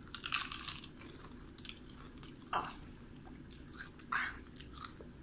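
Biting into and chewing crunchy fried chicken-skin chicharon: a loud crunch on the first bite, then scattered crunches as it is chewed.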